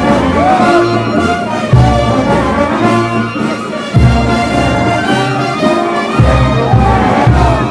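Live band playing carnival dance music, with horns carrying a wavering melody over deep, heavy bass notes.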